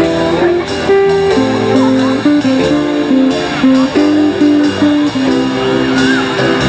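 A band playing an instrumental passage of a slow standard ballad, with sustained chords under a moving melody and no singing.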